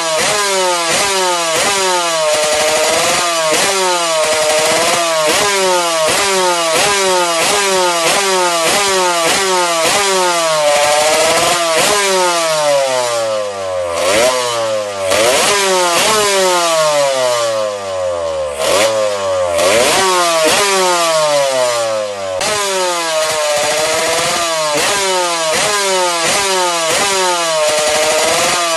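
A high-revving motor spinning on high-RPM bearings, blipped again and again: its whine jumps up and falls away about twice a second, with short lulls about halfway through.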